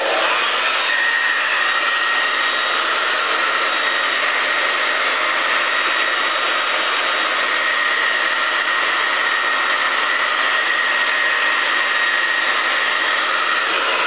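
Handheld hairdryer switched on and running steadily: a loud, even rush of blown air with a thin, steady whine riding on it.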